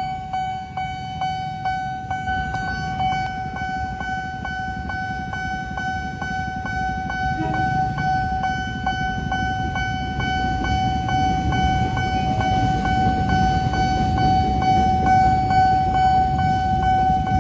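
Railway level-crossing warning bell ringing steadily in rapid pulses, about three a second. From about halfway, the low rumble of an approaching train grows louder over idling motorbike traffic, and the train is passing the crossing near the end.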